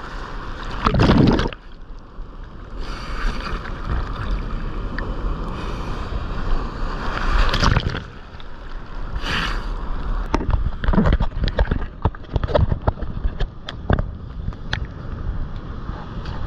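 Sea water splashing and sloshing around a GoPro worn on a bodysurfer's head strap, with loud surges of wave wash and, in the second half, a scatter of sharp splashes and knocks against the camera.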